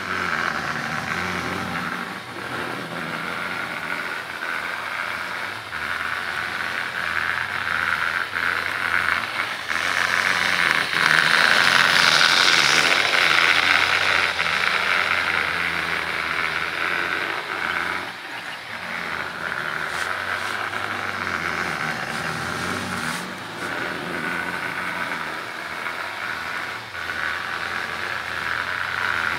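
HO scale model freight train running on its track: a steady whirr and rattle from the Bachmann diesel's motor and the rolling cars, with light clicks. It swells to its loudest about ten to fourteen seconds in as the cars pass close, then eases off.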